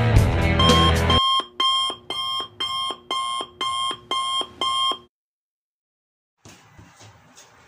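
Intro music ends about a second in, followed by a run of eight short electronic beeps, about two a second, from a countdown-leader sound effect. The beeps cut off suddenly to silence, and faint room sound comes in near the end.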